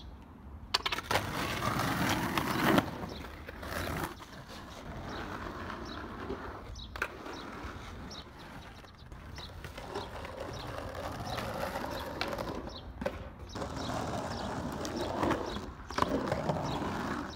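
Skateboard wheels rolling on rough asphalt, the rumble swelling and fading as skaters pass, broken by several sharp clacks of boards hitting the ground; one of the louder clacks comes near the end.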